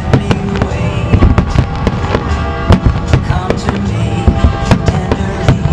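Aerial firework shells bursting in quick succession, several sharp bangs a second, in a finale barrage. Music plays underneath.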